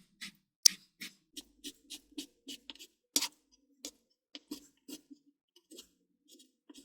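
Kitchen knife cutting raw chicken breast into small cubes on a cutting board: a run of short sharp knocks, about three a second and slightly uneven, with a louder chop near the start and another about three seconds in.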